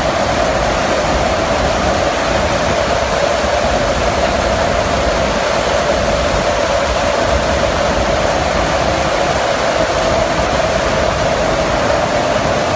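Steady, loud rush of wind and engine drone in the cargo hold of a transport aircraft flying with its rear ramp open, with a constant hum running through it.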